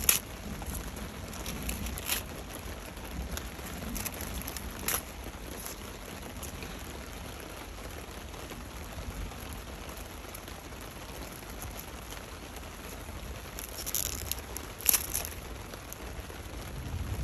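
Steady rain falling, with a few sharp, crisp crackles of dry, papery succulent leaves being pulled off with metal tweezers: a couple early on and a louder cluster near the end.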